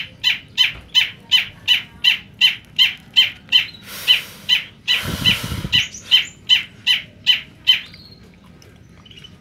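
Caged long-tailed shrike (cendet), semi-black-headed form, calling a rapid string of harsh, downward-sweeping notes, about three a second, that stops shortly before the end. A brief rushing noise cuts across the calls a little past halfway.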